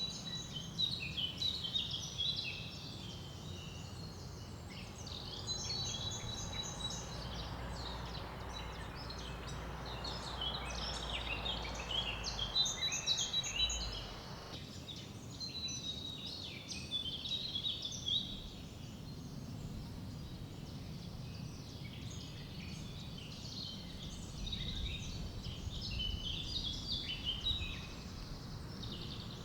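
Small woodland birds chirping and singing in quick, overlapping phrases, over the steady hiss of a mountain river flowing over small rapids. A low rumble under the water noise stops about halfway through.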